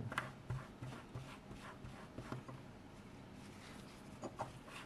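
Faint rubbing of a paper towel wiping old thermal paste off a small aluminium heatsink with alcohol, with scattered light clicks and taps as the part is handled.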